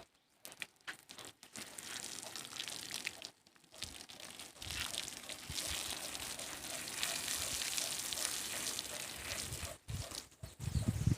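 Water spraying and splashing on a cow being bathed, a steady hiss that thickens about four seconds in, with crackling clicks in the first few seconds.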